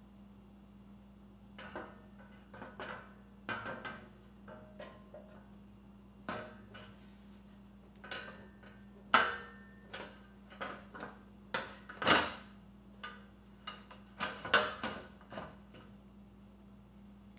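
A sheet-metal cover panel being set onto a portable generator's steel frame: a run of irregular metal clanks and rattles, the loudest about nine, twelve and fourteen and a half seconds in, over a steady low hum.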